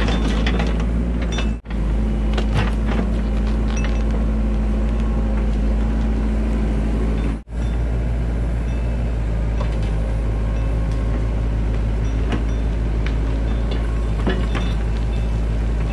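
Engine of a digging machine running steadily, with scattered clinks and scrapes from the digging. The sound cuts out briefly twice.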